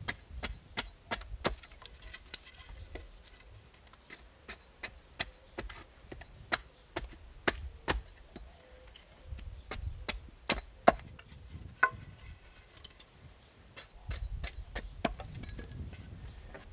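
Side axe chopping down the edge of a thin willow trug board stood upright on a wooden chopping block: a series of sharp, irregular chops, about three a second at first and more spaced later.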